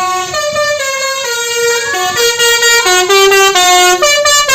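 Indonesian bus's musical 'telolet' horn playing a tune: a loud run of clear horn notes stepping from pitch to pitch several times a second.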